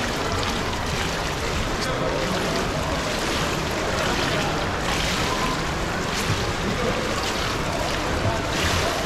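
Steady wash of indoor swimming-pool noise: water lapping and sloshing into the poolside overflow gutter.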